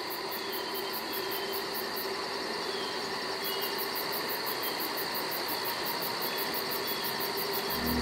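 Crickets or similar insects chirping steadily, with even, rapidly repeating high trills and short chirps over a steady background hiss. Low music comes in just before the end.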